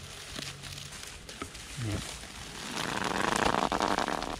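Dry straw rustling and crackling as a straw bundle is pulled and tied tight, with scattered light clicks at first and dense, louder crackling over the last second and a half.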